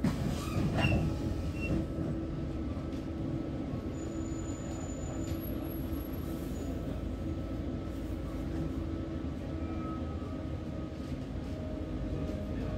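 Double-decker bus standing still with its engine running, heard from inside on the upper deck: a steady low rumble with a faint steady hum over it. There is a brief rattle and knock about a second in.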